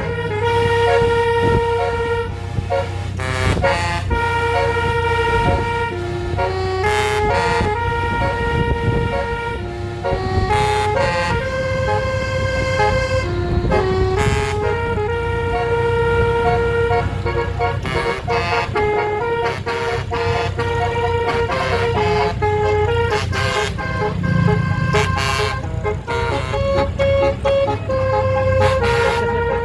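Bus 'telolet' musical air horn playing a tune, its held notes stepping up and down in pitch, over a bus engine's low rumble.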